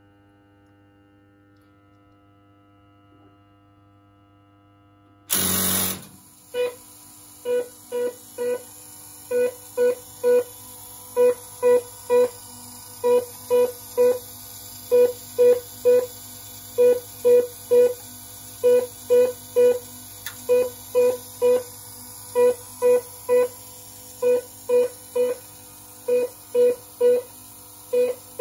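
TN (Telefonbau und Normalzeit) electromechanical telephone exchange running under test. After about five seconds of faint hum comes a short loud burst of noise, then a long run of short pitched buzzes, irregularly spaced and often in twos and threes.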